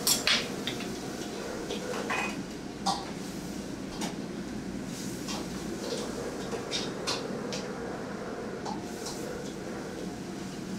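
Clinks and knocks of a stainless steel bowl and utensils against a porcelain plate while food is plated, loudest in a quick cluster right at the start and then as scattered lighter clicks. A steady kitchen background hum runs underneath.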